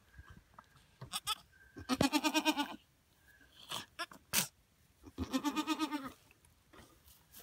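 Goat bleating twice, each a quavering call just under a second long, about two seconds in and again about five seconds in, with a few short clicks in between.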